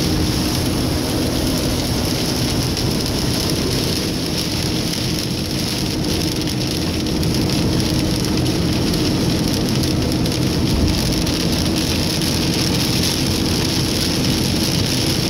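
Pouring rain hitting a moving car's windshield and roof, heard inside the cabin over the steady noise of the car driving on a wet road.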